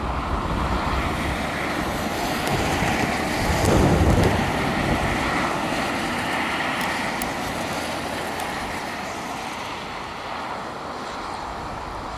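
Steam locomotive, S&DJR 7F 2-8-0 No. 53808, running in toward the station, its sound mixed with blustery wind buffeting the microphone; a strong gust about four seconds in is the loudest moment.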